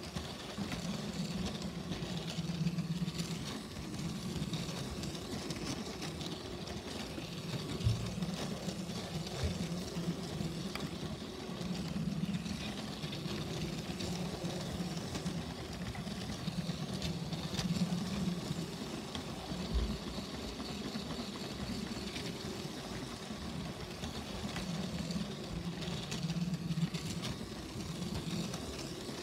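A Lego electric toy train's motor whirring and its wheels rolling on plastic track, heard from on board the train. The hum swells and fades every few seconds, with two short low bumps, about 8 and 20 seconds in.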